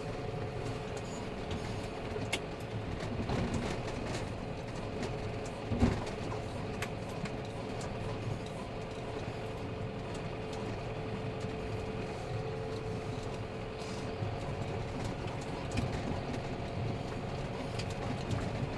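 John Deere tractor engine running steadily under load while it pushes a snow plough along a snowy forest road, with scattered clicks and a single knock about six seconds in.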